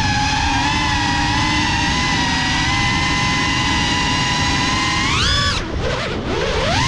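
GEPRC CineLog 35 FPV drone's brushless motors whining steadily, picked up by the onboard camera. About five seconds in the pitch rises sharply, then the whine drops away for about a second as the throttle is cut, and it glides back up near the end.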